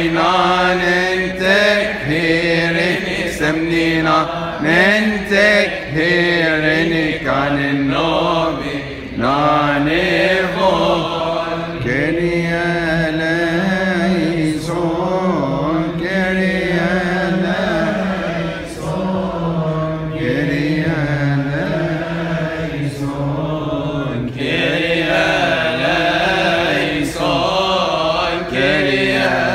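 Coptic Orthodox deacons chanting a liturgical hymn: men's voices singing together without a break, in long phrases with wavering, ornamented pitch.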